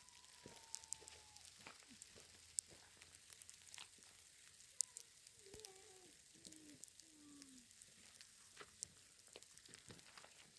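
Faint, irregular crackling and sizzling with scattered sharp pops. A few soft wavering calls or voice-like sounds come through: one gently falling at the start and several lower ones around the middle.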